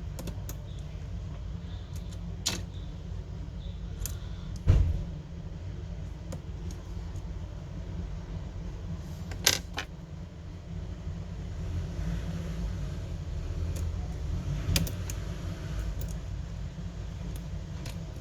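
A few sharp clicks and taps of small tools and parts during smartphone disassembly, the loudest about five seconds in, over a steady low rumble.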